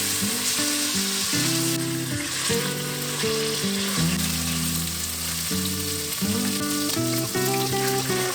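Food frying in a pan, with a steady sizzle, under background music.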